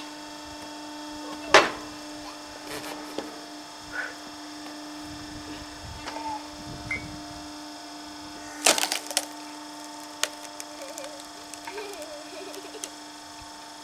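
Log splitter running with a steady motor hum while wood splits with sharp cracks: a loud crack about a second and a half in and another near nine seconds, with smaller creaks and clicks between.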